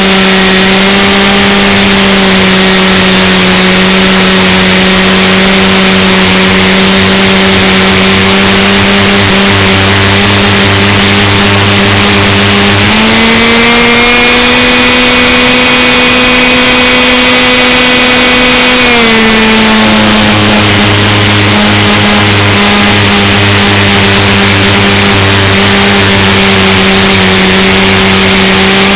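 A vehicle engine running loud and steady, heard close up. About halfway through it speeds up to a higher, steady note for several seconds, then drops back to its earlier speed.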